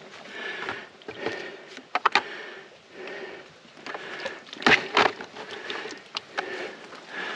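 Footsteps through wet brush and undergrowth in a steady walking rhythm, with sharp snaps of sticks breaking underfoot: a pair about two seconds in and a louder pair near the middle.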